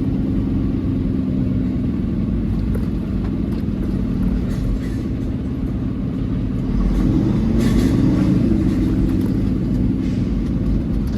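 Peterbilt 389 semi truck's diesel engine running steadily while the truck moves slowly. About seven seconds in, the engine gets louder and its pitch wavers up for a second or so, then settles back.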